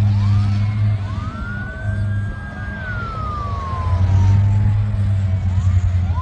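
Emergency-vehicle sirens wailing: the pitch rises about a second in, holds, then slowly falls, and rises again near the end. Under them runs a loud, steady low rumble.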